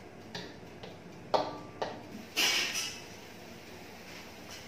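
Spatula knocking and scraping against a wok as sliced bottle gourd is stir-fried: a few sharp clicks, then a longer, louder scrape about two and a half seconds in.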